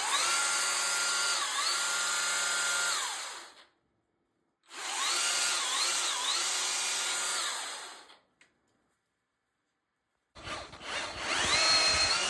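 Milwaukee battery-powered telescoping pole saw's electric motor and chain running in three bursts. Each burst has a whine that rises as the trigger is pulled, holds steady with brief dips in pitch, and falls away when released. The first burst ends about three and a half seconds in, the second runs from about four and a half to eight seconds, and the third starts about ten seconds in.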